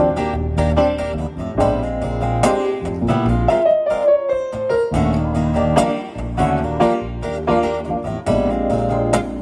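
Live instrumental duet of a strummed acoustic guitar and a Roland stage keyboard playing a piano sound. A held note slides down in pitch about halfway through.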